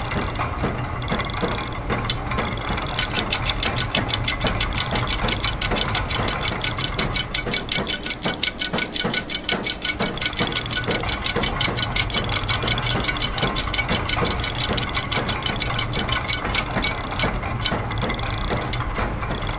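Layered loops of factory machine sounds: rapid, even ratchet-and-gear clicking over a steady low mechanical hum, with short hissing bursts about a second in and near the end.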